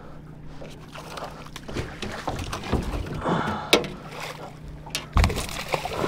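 Water splashing and sloshing against a small fishing boat, with knocks on the boat, over a steady low hum. A sharp knock comes a little before four seconds in and a heavy thump at about five seconds.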